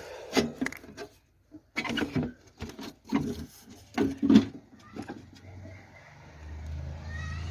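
Short indistinct voice-like sounds and knocks, the loudest about four seconds in, then the low hum of a car engine growing louder over the last two seconds.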